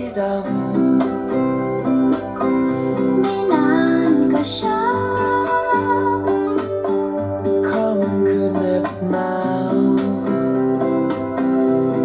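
Music: an instrumental passage of a slow song led by plucked guitar, with a gliding lead line about four seconds in.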